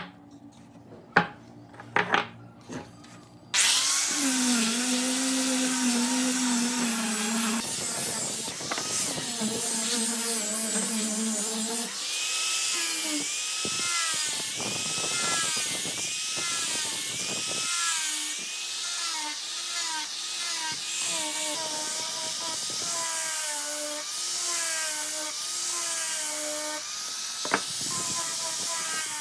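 A few sharp knocks on wood, then an electric power tool starts suddenly and runs on wood, its whine rising and dipping over and over as it is pushed into the work and eased off.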